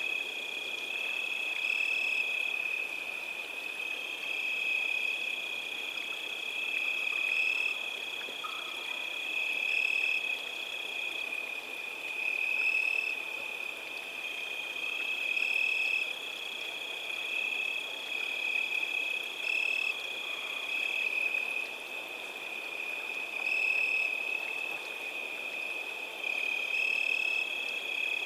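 Steady, high-pitched trilling chorus of small calling animals, swelling and easing every couple of seconds, over a soft background hiss.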